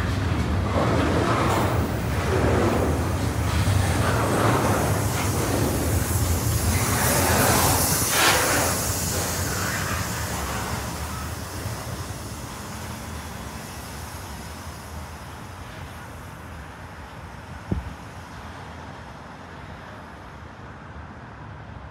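Metra commuter train going by, its wheels clattering rhythmically at roughly one beat a second, then fading away over several seconds from about halfway through. A single sharp click comes near the end.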